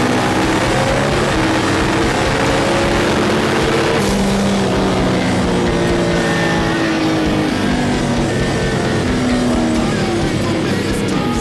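Turbocharged 365 LSX V8 of a drag-race Camaro running hard, heard from inside the cockpit. Its pitch rises, with a sharp change about four seconds in and more rising sweeps after it, with rock music over it.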